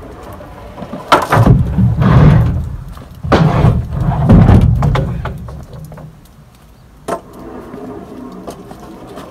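Wooden lumber boards being handled: two loud bouts of knocking and scraping, about a second in and again about three and a half seconds in, then a single sharp knock about seven seconds in.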